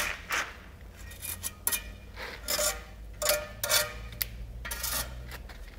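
Steel bricklaying trowel scraping and clinking against mortar and brick in a run of short strokes, about two a second, as mortar is worked into the joints around a skewback.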